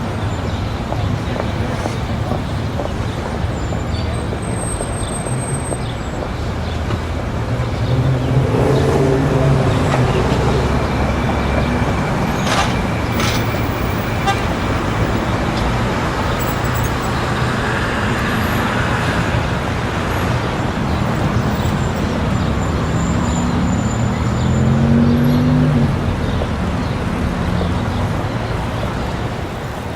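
Busy city street ambience: steady traffic noise with vehicles passing and the voices of people on the street. A car horn toots partway through.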